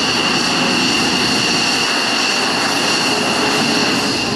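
F-15 Eagle's twin turbofan engines at taxi power: a steady high-pitched whine over an even rushing noise.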